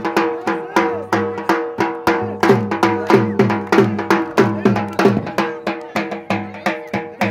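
Dhol drumming a fast, even attan dance beat over a steady held drone.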